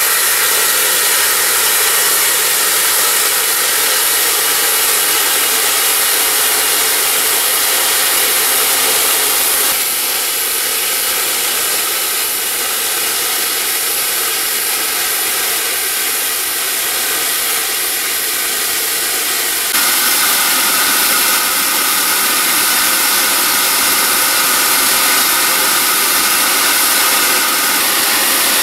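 Steam hissing steadily from Isle of Man Railway steam locomotive No. 4 Loch. The hiss drops abruptly quieter about ten seconds in and jumps back up about twenty seconds in.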